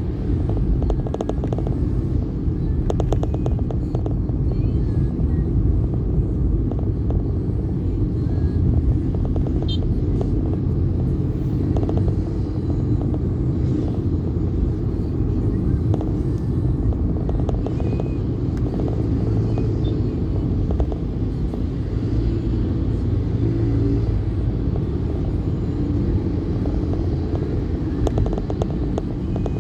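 Steady low rumble of a moving vehicle and road traffic, with no clear changes in engine pitch.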